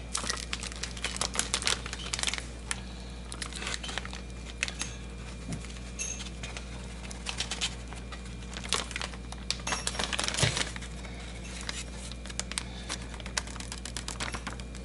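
A plastic Ziploc bag crinkling and crackling in irregular bursts as it is handled, with marinade and thawing meat inside.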